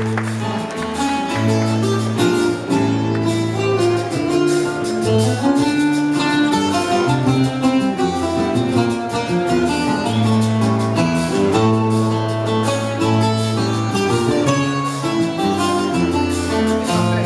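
A laúd and accompanying plucked strings play a steady instrumental passage, a run of plucked notes over a low bass line, in the décima accompaniment between sung verses.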